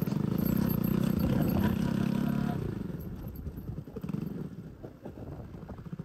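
Bajaj Pulsar NS200 single-cylinder motorcycle engine running under throttle for the first two and a half seconds, then easing off, with a brief rise again near four seconds. Its silencer has been knocked, which the rider says makes it very loud.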